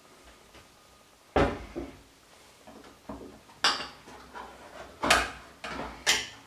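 Dishes and kitchen containers knocking and clinking as they are handled and set down on a wooden counter: a series of separate sharp knocks, each with a short ring.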